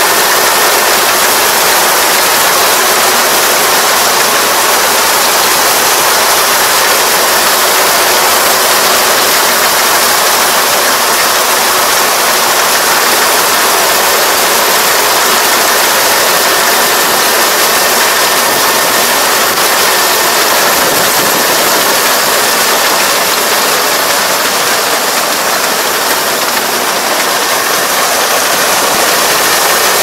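Rice combine harvester running steadily: a loud, even mechanical noise from the engine and machinery.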